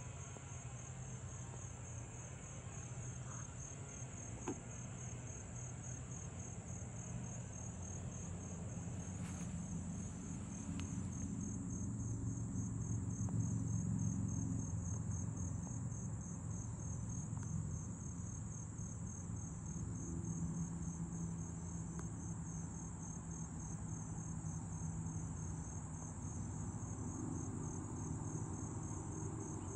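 Insects trilling in a steady, high-pitched, finely pulsing chorus. A low rumble runs underneath and swells about twelve seconds in.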